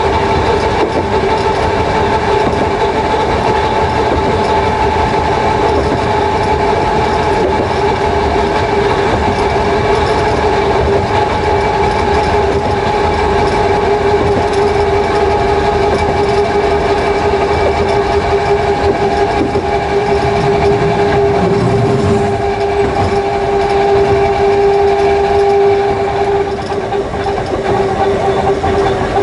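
Interior running sound of the Jomo Electric Railway DeHa 101, a resistance-controlled electric car with nose-suspended traction motors (Shibaura SE-132B), powering up a grade: a loud, steady whine of the motors and gearing over the rumble of wheels on rail. Near the end the whine eases somewhat.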